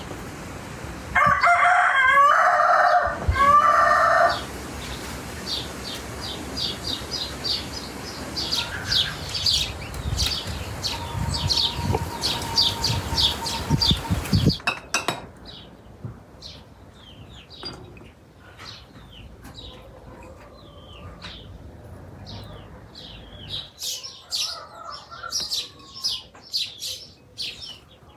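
A rooster crows loudly about a second in, one crow lasting about three seconds with a short break in it. Small birds chirp in quick, repeated high notes throughout.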